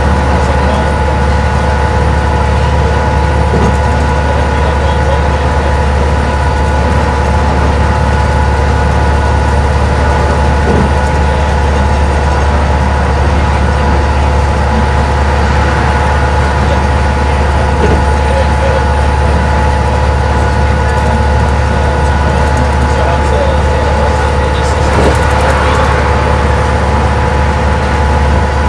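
Detroit Diesel Series 50 EGR diesel engine of a 1992 Stewart & Stevenson Apollo T-40 transit bus pulling at steady freeway speed, heard from inside the passenger cabin: a loud, steady low drone mixed with tyre and road noise and a few steady higher whines.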